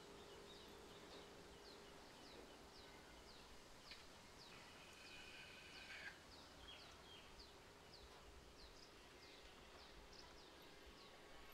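Near silence with faint outdoor ambience: a small bird's short, high chirp repeats evenly two or three times a second, with a brief faint buzz about five seconds in.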